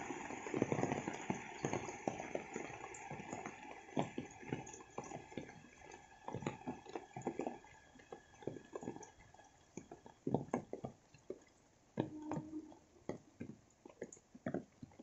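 Rain dripping off wet leaves and branches: irregular single drops falling close by over a faint wash of rainfall, denser at first and thinning to scattered drips.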